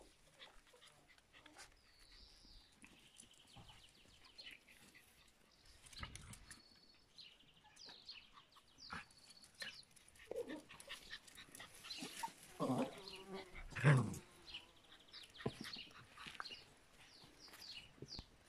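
Yorkshire terrier puppies yipping and squeaking in short, high calls as they play, with scuffling between them. The loudest, deeper sounds come about twelve to fourteen seconds in.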